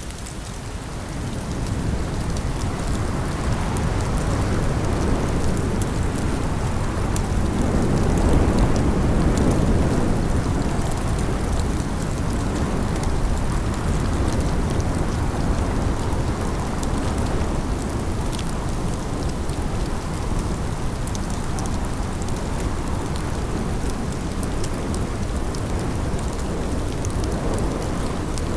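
Steady rushing noise of a spring snowstorm, heaviest in the low end and swelling about a third of the way in.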